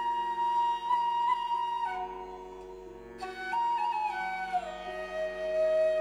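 Background instrumental music: a melody of long held notes that step from pitch to pitch over a steady drone, fading briefly about halfway through before the melody returns.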